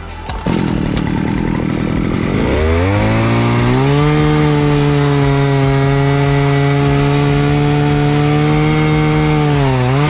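Eskimo gas-powered ice auger engine running rough and low, then revved up about two and a half seconds in and held at a steady high speed. It drops back in pitch near the end as the throttle is let off.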